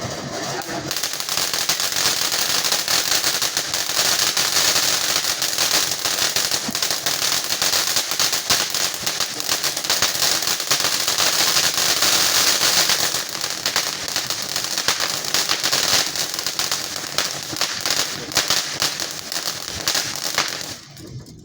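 Consumer firework crackling: a dense, rapid run of small pops that keeps going for about twenty seconds and stops suddenly near the end.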